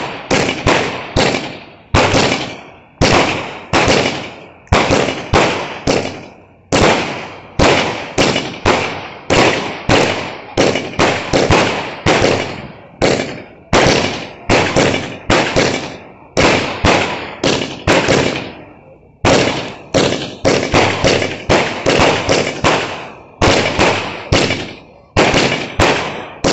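100-shot firework cake firing its shots in quick succession: sharp bangs about two a second, each dying away quickly, with a short pause about three-quarters of the way through.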